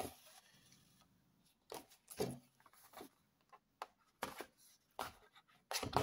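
Faint scattered taps and rustles of a paper card being handled and turned over while a needle is pushed through its punched holes and thread drawn after it.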